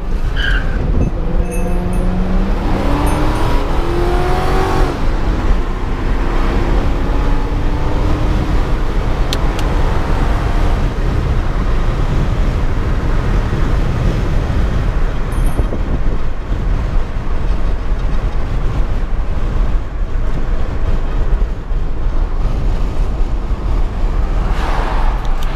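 Ford Crown Victoria Police Interceptor's 4.6-litre V8 heard from inside the cabin while driving: the engine revs up under acceleration a couple of seconds in, then settles into a steady drone of engine, road and wind noise.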